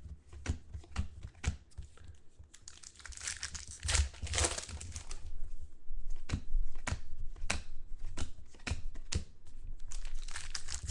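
Trading card packs being torn open and the cards handled: wrapper crinkling and tearing, with many short sharp clicks and snaps, busiest about three to five seconds in.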